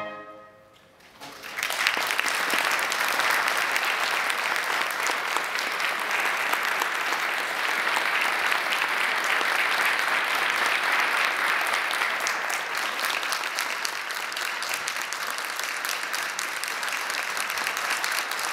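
After about a second of hush, audience applause breaks out and continues steadily.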